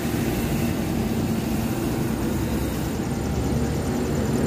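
Suzuki Carry mini truck's 660cc 12-valve K6A three-cylinder engine idling steadily.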